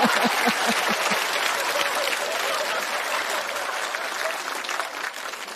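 Studio audience applauding, with a laugh trailing off in the first second. The applause is loudest at the start and slowly dies away.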